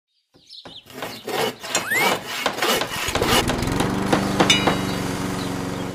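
A busy mix of sound effects: clicks and knocks, a short rising whistle about two seconds in, then from about three seconds a steady motor-like hum with more clicks over it.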